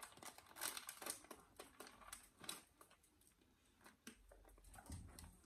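Faint, crisp crunching and mouth clicks of a person biting into and chewing a fish sandwich with sliced almonds, dense over the first two and a half seconds and then sparser. A soft low thump near the end.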